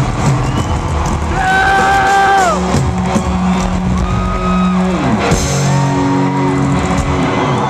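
Live rock band playing loud through a concert PA, heard from within the audience: long held notes, several sliding down in pitch, over drums and distorted guitar.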